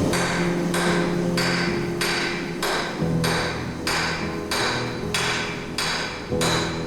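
Hammer blows on hot steel at the anvil during hand forging, struck in a steady rhythm of a little under two blows a second, each with a short ring.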